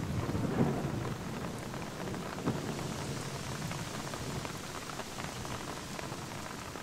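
Steady rain falling, with a few separate drops standing out.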